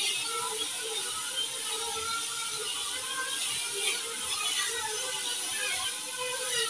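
Mini quadcopter drone's small motors and propellers buzzing in flight, with a whine whose pitch shifts up and down as it moves about.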